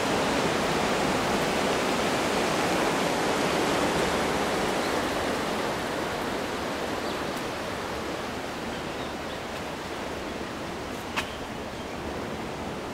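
Steady rushing wash of ocean surf that fades a little in the second half, with one short click about eleven seconds in.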